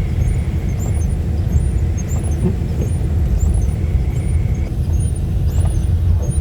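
Steady low rumble of a car driving, road and engine noise heard from inside the cabin.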